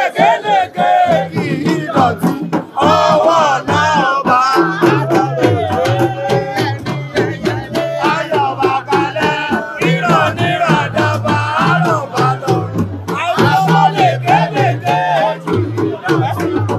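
A group of voices singing together over a steady, rhythmic percussion beat, with a crowd joining in.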